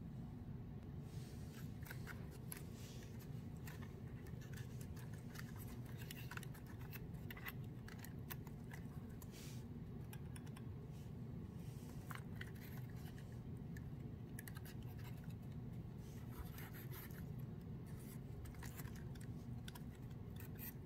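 Fingers handling a cardboard 3D-puzzle steam locomotive: irregular light scratches and clicks as it is turned over in the hand, over a steady low hum.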